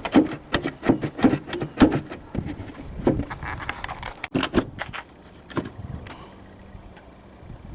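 Plastic tail light assembly being worked loose from a Porsche Cayenne's rear body by hand: a rapid run of clicks, knocks and scrapes for about five seconds, then only a few scattered clicks.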